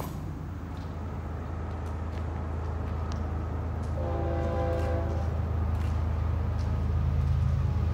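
Norfolk Southern freight train's diesel locomotives approaching, a low engine rumble growing steadily louder. About four seconds in, the locomotive horn sounds one blast of a little under two seconds.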